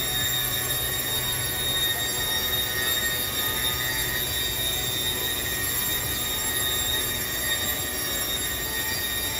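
Biesse Rover CNC machining centre running: a steady high-pitched whine with a low hum beneath it.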